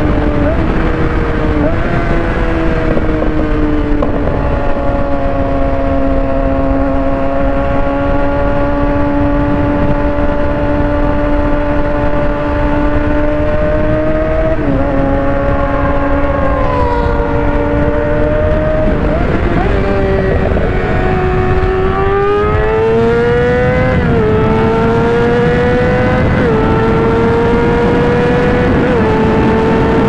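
Inline-four 600-class sport bike engine running at high, steady revs with constant wind rush. About halfway through, a second sport bike's engine passes, its tone falling. In the last third the revs climb hard with quick upshifts, the pitch rising and dropping several times.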